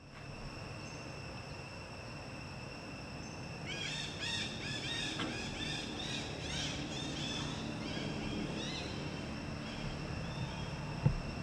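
Forest ambience: insects droning in several steady high tones, with a flurry of quick, repeated chirping calls from about four to nine seconds in. A single sharp knock comes near the end.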